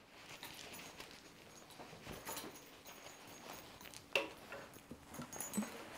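Faint rustling of a cloth jacket being lifted and handled over a wooden chair, with a few soft knocks, the sharpest about four seconds in.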